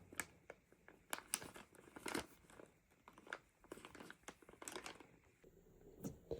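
Faint, scattered crinkling and light clicks of packaging being handled while kit parts are unpacked from the box.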